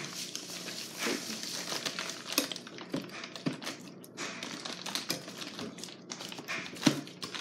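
Light clicks and plastic crinkling from handling a lamp's coiled clear electrical cord as its twist tie is untwisted.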